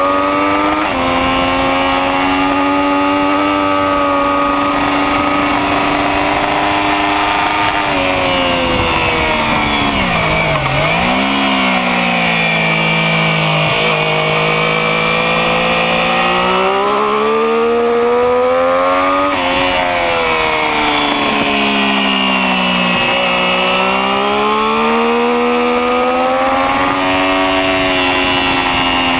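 Sport motorcycle engine running at speed on a track lap, heard from a camera on the bike. Its pitch sinks low about ten seconds in as the bike slows, climbs steadily from about fifteen seconds, and drops suddenly at about nineteen seconds, then dips and rises once more near twenty-three seconds. A rushing noise runs underneath.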